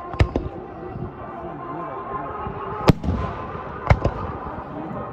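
Fireworks going off over a snowy ski slope: five sharp bangs in three groups, a close pair just after the start, a single one near the middle, and another close pair about a second later.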